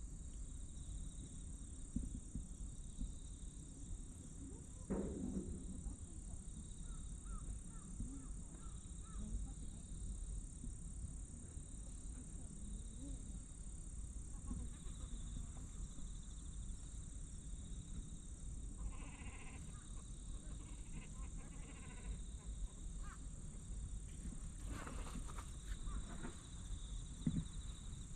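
Outdoor ambience in grass: a steady high-pitched drone over a low rumble, with a few brief animal calls, one about a fifth of the way in and a short pulsing call about two-thirds of the way through.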